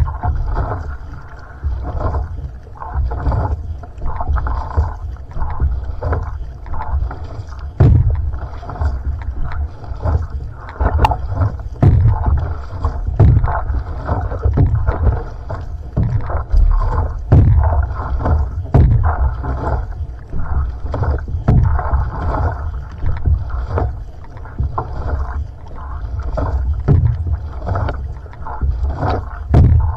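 Paddle strokes of a va'a (outrigger canoe) heard from a camera on the hull just above the water. The blade splashes in about every second to second and a half, over a steady rush of water along the hull.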